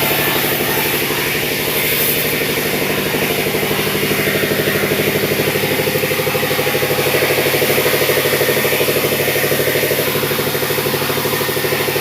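Sawmill's engine running steadily, a loud even drone with a fast pulsing beat that holds the same speed throughout.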